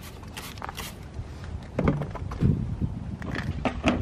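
Short hissing squirts from a trigger spray bottle of wheel cleaner being sprayed onto a car wheel and into its barrel, with a few low knocks of handling in the second half.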